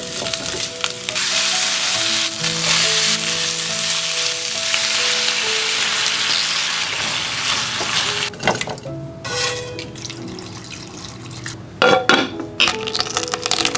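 Food sizzling as it fries in a hot pan over background music. The frying fades after about seven seconds, and a few sharp clatters follow later.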